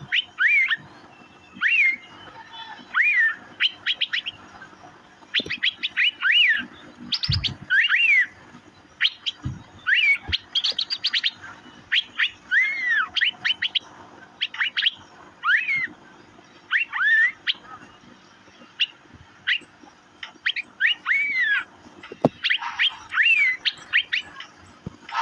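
Asian fairy-bluebird calling: repeated groups of sharp ticking notes, each group with an arched whistle that rises and falls, every second or two. A couple of brief low thumps come in about a third of the way through.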